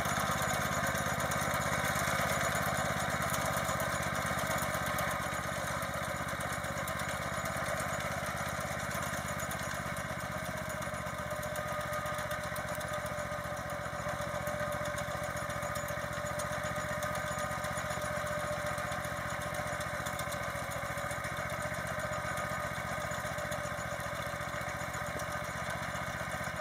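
Motor Sich walk-behind tractor's engine running steadily under load as it pulls a potato digger through the soil.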